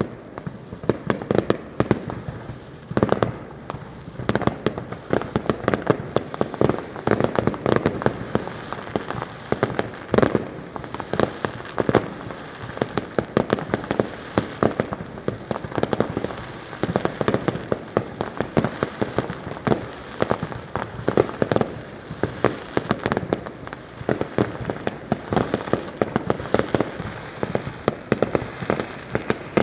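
Fireworks display in a continuous barrage, with several sharp bangs a second from shells bursting overhead.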